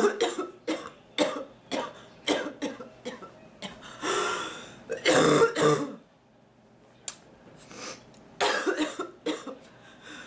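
A woman coughing and clearing her throat in repeated short fits, a coughing attack, with a pause of about two seconds past the middle before the coughing starts again.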